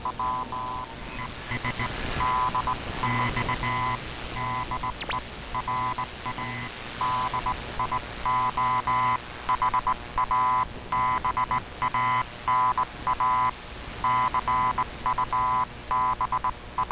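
Morse code over a weak, distorted shortwave AM broadcast: a buzzy tone keyed on and off in an irregular pattern of short and long bursts, over a faint background hiss.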